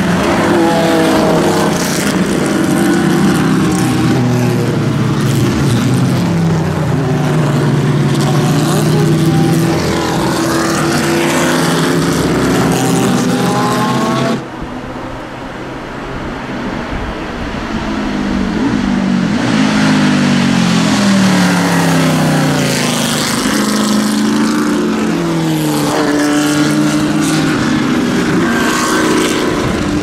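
Historic sports-prototype race cars going past at speed on a wet track, their engines rising and falling in pitch as they accelerate and shift. About fourteen seconds in the sound cuts sharply to a quieter stretch, then more cars approach and pass.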